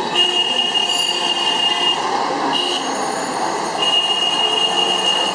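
High, steady squeal from a pedal cycle rickshaw as it rolls along, heard twice: for about two seconds starting just after the start, then again for the last second and a half. Beneath it is a constant haze of rolling and street noise.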